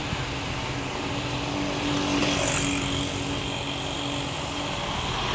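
Street traffic: cars and motorcycles passing on the road, with a steady engine hum strongest about two seconds in.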